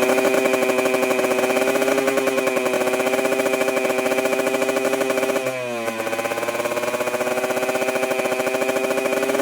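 Modified Yamaha 125ZR single-cylinder two-stroke engine running at a steady high idle with a fast even beat; about halfway through the revs dip briefly and pick back up.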